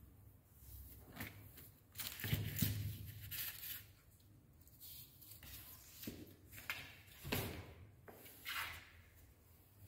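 Kittens scrabbling about in a cardboard box, their claws scratching and rustling on the cardboard and a pillow in irregular scuffles, with a soft bump about two seconds in.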